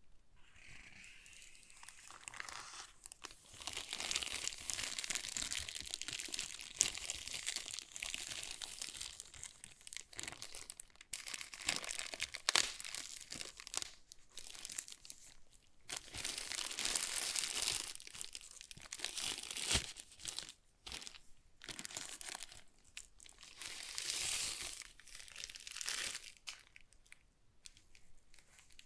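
Packaging being handled and unwrapped: plastic or paper crinkling and rustling in irregular bursts with short pauses, and a few sharp clicks.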